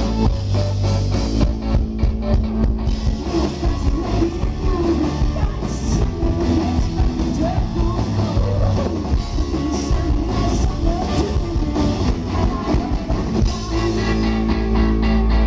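A rock band playing live, with drums, guitar and singing.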